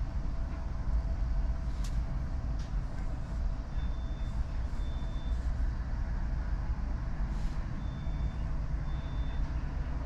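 Steady low vehicle rumble while waiting in a drive-thru lane, with two pairs of short high beeps, about four and eight seconds in.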